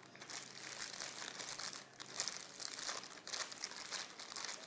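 Clear plastic wrapping being crinkled and pulled off a new fishing rod, an irregular run of crackling rustles.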